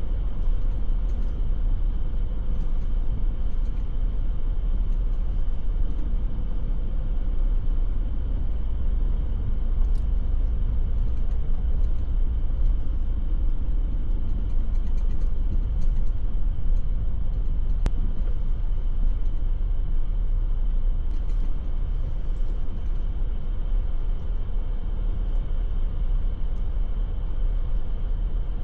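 Steady low rumble of a Mazda3 fastback 15S on the move: road and engine noise that holds even throughout, with a faint click about ten seconds in and another around eighteen seconds.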